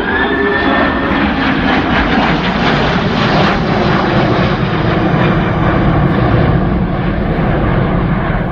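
Airbus Beluga XL's two Rolls-Royce Trent 700 turbofans, loud and steady as the aircraft flies past, with a high whine in the first second or two over the broad jet noise.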